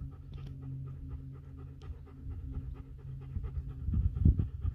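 Doberman panting with fast, even breaths. A louder low rumble comes in near the end.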